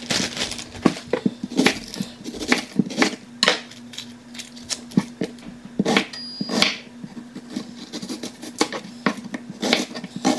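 Kitchen handling sounds: irregular clicks and knocks of dishes and utensils being moved and set down, over a steady low hum.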